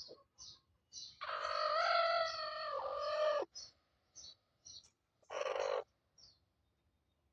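A rooster crows once, a loud call of a little over two seconds starting about a second in, over a run of short high chirps about three a second. A shorter fowl call follows about five seconds in.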